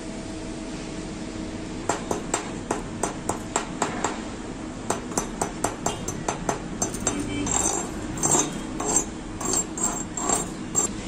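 Chipping hammer striking a freshly MIG-welded steel fillet joint to knock off slag and spatter: sharp metallic taps, about two or three a second, beginning about two seconds in, turning into longer scraping strokes along the bead near the end.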